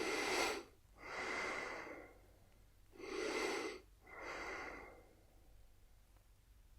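A man snoring heavily in two breath cycles. Each cycle is a short loud snore followed by a longer, softer breath, and a pause of about two seconds follows near the end.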